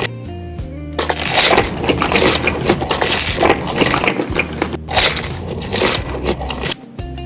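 Loud, dense crunching of crunchy food being bitten and chewed close to the microphone, stopping shortly before the end.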